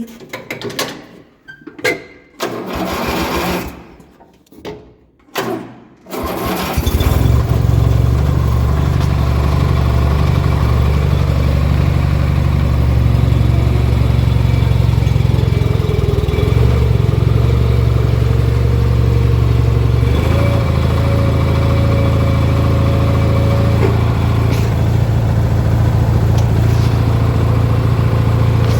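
18 hp Briggs & Stratton twin-cylinder engine of a modified Craftsman riding mower: several short bursts of starter cranking with pauses between, then the engine catches about six seconds in and runs steadily at a loud, even note, which changes slightly about twenty seconds in.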